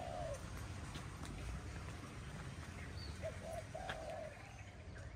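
A dove cooing in soft low phrases, a few short coos running into a longer one, heard at the very start and again about three seconds in. Faint short chirps of other birds are heard over a low steady background rumble.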